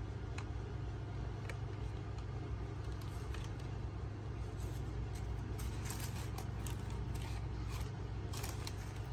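Tissue paper and a cardboard shoebox rustling and crinkling as a new sneaker is handled and turned over, the crinkles thickening in the second half. A steady low hum runs underneath.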